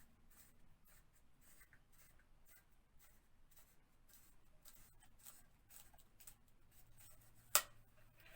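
Faint, irregular scratching of a Stanley knife blade working at the edges of vinyl wallpaper, lifting them, with one sharp click near the end.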